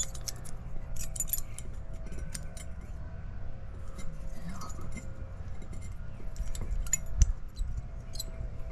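Light metallic clinks and clicks, scattered and irregular, of thin steel brake-pad clips being handled and snapped into a front brake caliper bracket.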